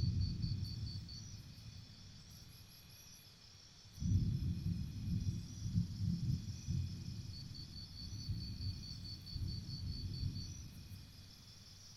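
Forest insects chirping in a steady, rapid high-pitched pulsed trill, with a louder low rumbling noise that comes and goes in gusts, strongest at the start and from about four seconds in.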